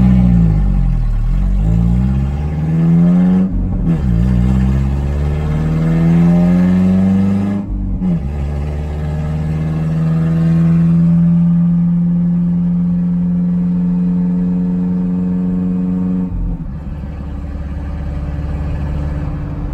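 Nissan pickup truck's engine, heard from inside the cab, accelerating hard through the gears with a loud exhaust. The pitch climbs, then drops sharply at each of two upshifts about four seconds apart, then holds steady at cruise until the throttle eases off shortly before the end.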